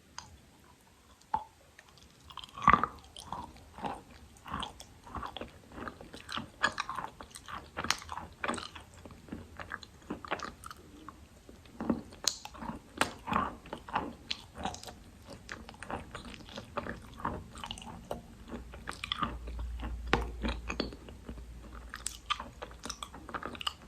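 Close-up crunching and chewing of dry Khrapovsky chalk, with irregular crisp bites and crunches several times a second, the loudest about three seconds in.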